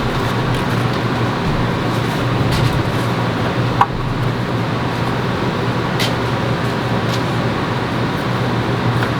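Steady machine drone with a low hum, like a running fan, and a few light clicks about four, six and seven seconds in.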